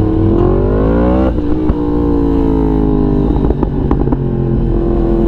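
Yamaha MT motorcycle's crossplane engine accelerating, its pitch rising until a sudden upshift about a second in. The revs then fall away slowly as the throttle eases, with a few sharp crackles and pops in the middle, before it settles to a steady cruise.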